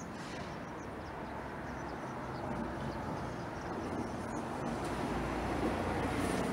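Street traffic rumble with a vehicle drawing nearer, growing louder and deeper toward the end.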